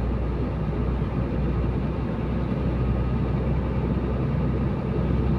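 Truck engine running steadily with road noise, heard from inside the cab while driving slowly: a constant low drone.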